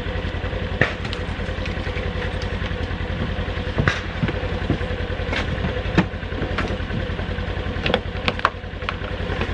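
Ranger side-by-side utility vehicle's engine running with a steady low pulse, with scattered knocks and clicks.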